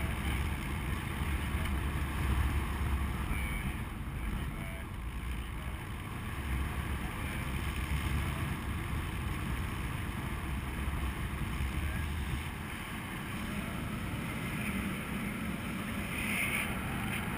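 Wind rushing and buffeting over a paraglider pilot's camera microphone in flight: a steady noisy rush with a heavy low rumble that eases about two-thirds of the way through.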